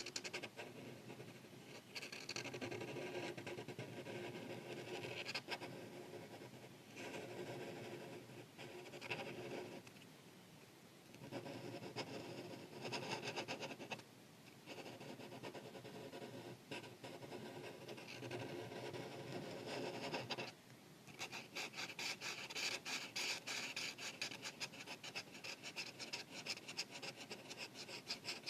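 Art marker tip rubbing over paper in runs of coloring strokes with short pauses between them. After about twenty seconds it turns to quick back-and-forth strokes.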